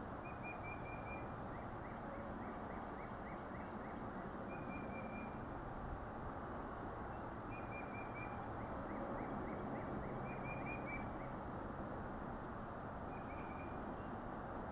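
Songbirds calling in short repeated chirping phrases, with runs of quick down-sliding notes about five a second, over steady outdoor background noise.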